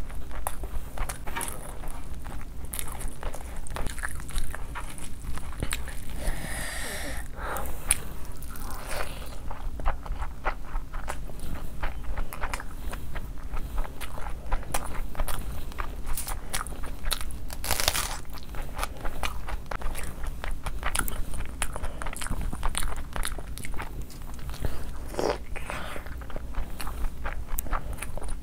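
Close-miked eating sounds of a person biting and chewing sauce-covered fried chicken and rice eaten by hand, a steady stream of small wet clicks, smacks and crunches.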